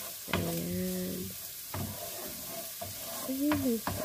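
Wooden spatula stirring and scraping minced onion and garlic as they sauté in oil in a frying pan: a light sizzle under regular scrapes and taps. Two brief pitched tones sound near the start and about three seconds in, the second the loudest.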